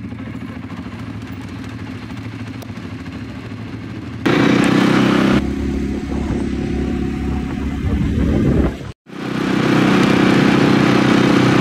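Quad bike engines running, getting markedly louder about four seconds in; the sound cuts out abruptly for a moment just before nine seconds, then comes back loud.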